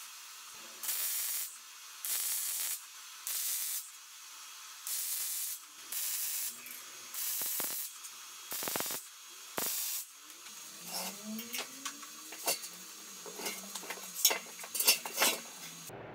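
Aerosol can of anti-spatter spray hissing in about ten short bursts of around half a second each, then a run of light clicks and taps.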